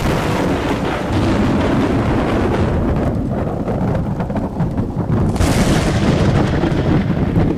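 Thunder: a sudden loud crack that runs into a long rumble, with a second crash about five and a half seconds in.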